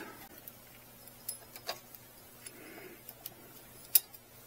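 A few light clicks and taps of small carburetor parts, the top cap and throttle slide, being handled and fitted, with the sharpest click about four seconds in.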